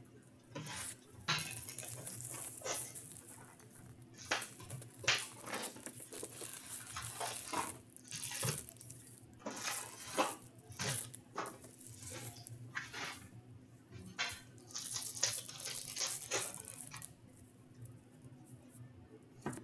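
Plastic shrink wrap being crinkled and torn off a box of Upper Deck hockey cards, then the foil card packs rustling as they are handled and one is torn open. The sound is an irregular run of crackles and rustles, quieter near the end.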